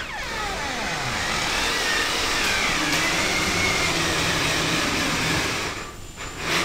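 A steady mechanical whir like a small motor running, with a faint whine over it, that stops a little before the end.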